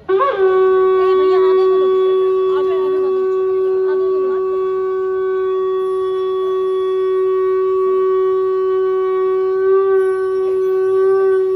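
A ritual conch shell (shankh) blown in one long, unbroken blast: a single steady held note with bright overtones that starts abruptly and swells slightly near the end.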